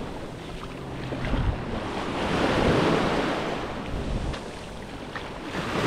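Small sea waves washing onto the beach, with wind buffeting the microphone; the surf swells to its loudest a little before halfway through.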